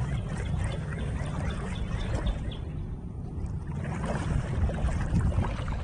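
Water sloshing and trickling around hip waders as a person wades in a river, with small splashes over a steady low rumble.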